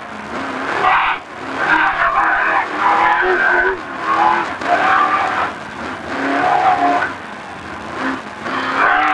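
Off-road race truck engine heard from inside the cab, pulling hard with its revs rising and falling several times as the driver gets on and off the throttle. The gear indicator moves from second to third.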